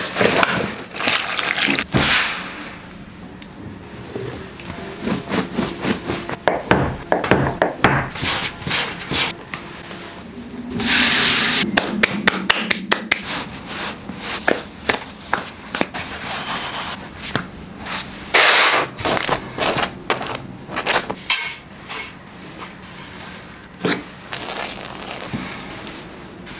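A run of close-up kitchen preparation sounds: flour poured from a paper bag into a stainless steel bowl at the start, then dough worked by hand on a floured wooden board. Many short taps, scrapes and crackles, with a few longer rushing stretches.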